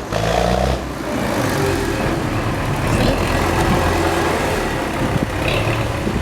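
Old MTZ (Belarus) tractor's diesel engine running steadily.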